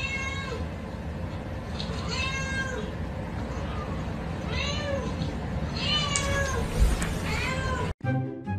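Meow-like animal calls: about five short cries, each rising then falling in pitch, a second or two apart over a steady hiss. Music starts suddenly near the end.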